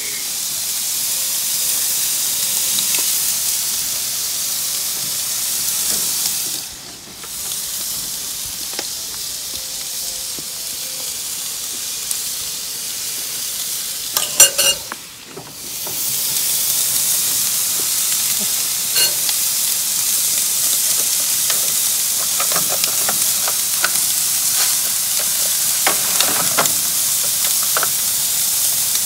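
Raw beef burger patties sizzling on the hot grates of a gas grill: a steady high hiss that drops away briefly twice. There is a sharp knock about halfway, and light clicks and taps in the last several seconds as more patties are laid on the grate.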